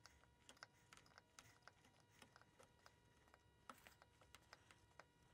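Faint, irregular small ticks and clicks of a chisel worked along a marking-gauge line in a wooden board, cutting a knife wall for a rabbet.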